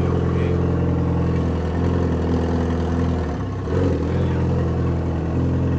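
Yamaha XJ6's 600 cc inline-four engine idling steadily, with a brief sag and a small pickup in revs a little past halfway.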